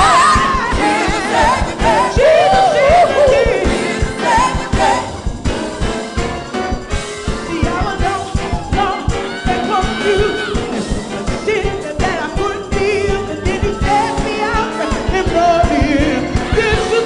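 Live gospel choir singing with band accompaniment, a lead voice with strong vibrato over a steady beat.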